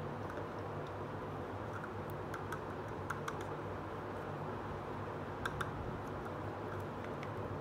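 Small plastic toy cooking pot and lid being handled: scattered light plastic clicks and taps, a few in quick pairs, over a steady low background hum.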